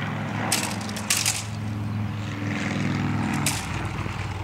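A steady engine drone with a low, even pitch, overlaid by four sharp cracks: one about half a second in, two close together around a second in, and one near the end.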